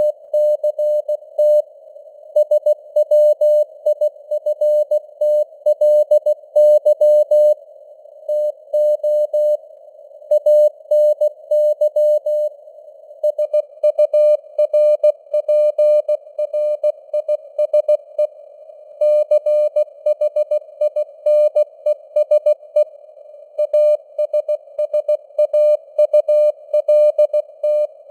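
Morse code news sent at 16 words per minute: a single mid-pitched tone keyed in quick dots and dashes with short gaps between letters and words. It rides on a narrow band of simulated radio hiss, like a CW signal heard through a receiver.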